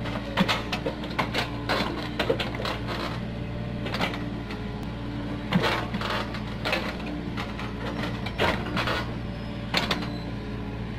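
Komatsu PC45 mini excavator's diesel engine running steadily as the machine digs, with frequent irregular sharp clanks and knocks from the bucket and digging arm working in the earth.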